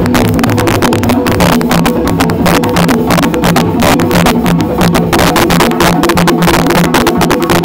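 Live West African music: a balafon with gourd resonators struck with mallets in a dense run of notes, over djembe and other hand drums.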